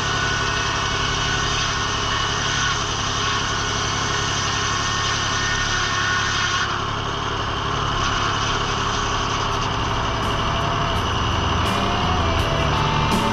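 An engine running steadily, with a constant hum and a higher whine above it.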